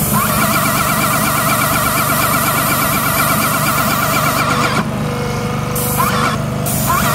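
Battery-powered Graco ES500 airless paint sprayer spraying paint: a steady pump-motor whine with spray hiss over a low hum. Both cut out twice, about five and six seconds in, and the motor winds back up each time.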